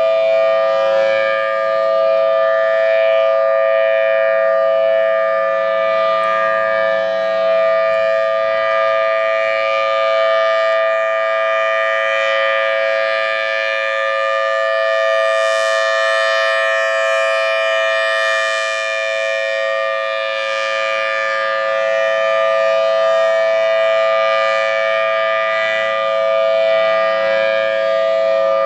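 Federal Signal Thunderbolt 1003 outdoor warning siren sounding a steady tone made of two pitches together, swelling and fading a little in loudness. This is a monthly test in which it is the siren that worked.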